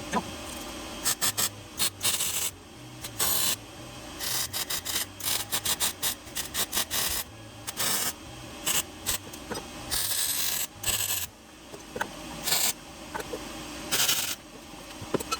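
Metalworking on a steel exhaust piece: a long, irregular run of short, harsh rasping bursts, some brief and some lasting up to about a second.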